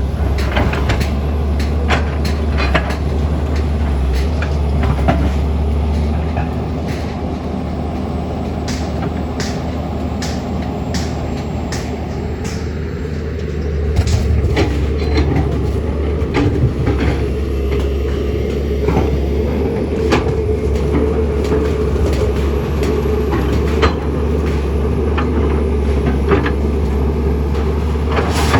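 A heavy engine runs steadily with a deep rumble, with frequent clanks and knocks over it. The engine eases off from about six seconds in and picks up again about fourteen seconds in.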